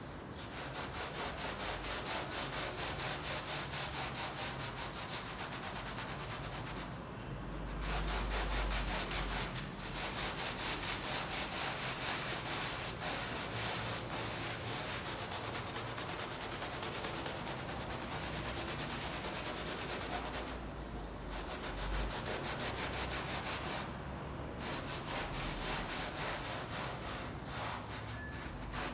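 Stiff-bristled hand brush scrubbing a wet, foamy rug in fast back-and-forth strokes, the bristles rasping over the wet pile. The strokes stop briefly a few times.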